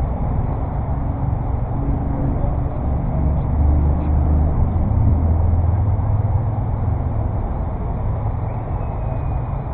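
Steady low rumble that swells for a few seconds around the middle.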